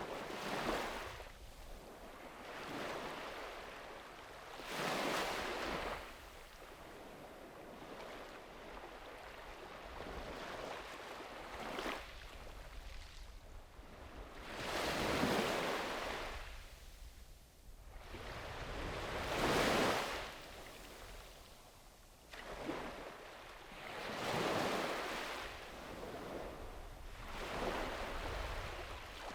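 Sea waves breaking and washing up on a beach, each one a swell of rushing water that builds and fades every few seconds. The largest come about halfway through and again a few seconds later.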